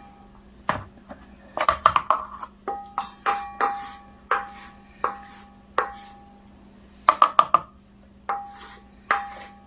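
KitchenAid Deluxe stand mixer running on low speed with a flat beater through flour and creamed butter: a steady motor hum under repeated sharp metallic clinks that ring off the stainless steel bowl, with quick runs of clinks about two seconds in and again near seven seconds.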